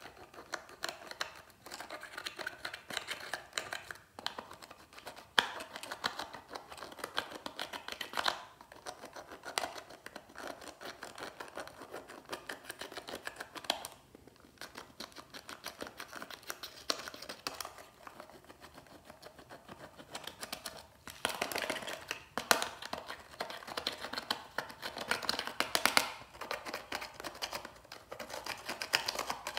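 Pointed metal pick scraping and picking pressed eyeshadow powder out of a plastic toy makeup palette: rapid, dry scratching and clicking in uneven bursts, louder in the last third.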